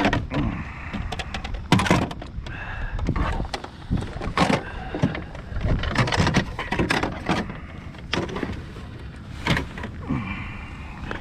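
Handling noises as a landed smallmouth bass is laid out and measured in a kayak: an irregular run of sharp knocks, taps and clicks with rustling between them.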